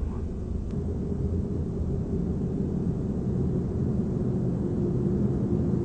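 Low, steady rumbling drone with a faint held tone above it, from a dance performance's soundscape, slowly growing a little louder.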